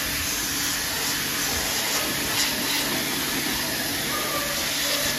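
Pressure washer spraying a steady jet of water onto the fan grille of a split AC outdoor unit: a continuous, even hiss of spray.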